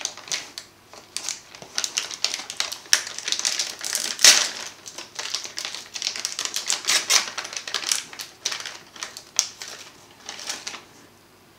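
Plastic packaging crinkling and crackling in quick, irregular clicks as hands unwrap bagged parts from a kit box; it stops shortly before the end.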